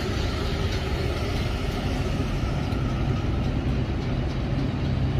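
Diesel tractor-trailer engines idling steadily in a queue, a low even rumble.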